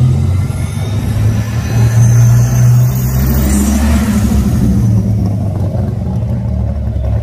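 Car engine running loudly with a low exhaust note, the revs swelling up about two seconds in before settling back.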